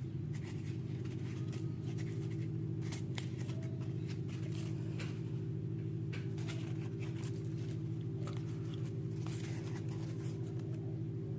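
A steady low hum, loudest throughout, with light scratching and clicking of small objects being handled over it.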